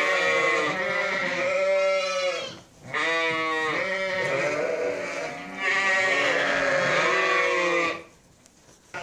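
Sheep bleating: long, wavering bleats one after another, with a brief pause before the three-second mark and a stop about eight seconds in.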